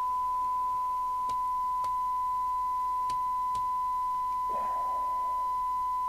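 Steady 1 kHz test tone from a Radiomobile CB202 FM CB radio receiving a one-microvolt, tone-modulated signal from a signal generator during receiver sensitivity checks. A few faint clicks are heard, and a short burst of hiss comes near the middle.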